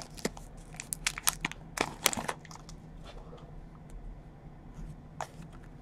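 Foil trading-card pack wrapper crinkling in the hands as it is pulled open, in dense crackles for the first two seconds or so. It then gives way to fainter, scattered clicks as the stack of cards is handled.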